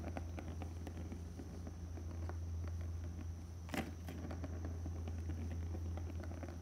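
A Maine Coon kitten at play: many light, scattered taps and clicks, with one sharper click about four seconds in, over a steady low hum.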